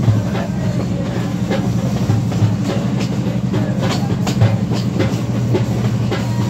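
Express train hauled by an M6 diesel locomotive running along the track, heard from an open carriage door: a steady low drone with the wheels clacking over the rails every second or so.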